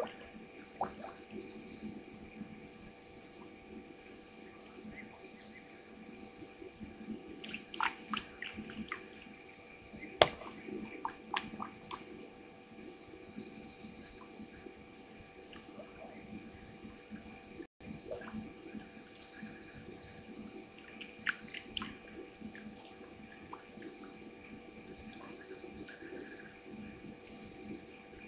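Night insects such as crickets trilling steadily, a fast, even, high-pitched pulsing with regular chirps over it. Scattered short sharp clicks fall between about eight and twelve seconds in, the loudest near ten seconds. The sound cuts out for an instant just past halfway.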